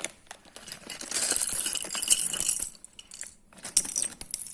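Small plastic Lego pieces clinking and rattling together in a crinkling plastic blind bag for about a second and a half, followed by a few light clicks near the end.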